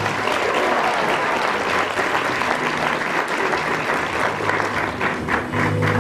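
Guests clapping and applauding, with music starting up again near the end.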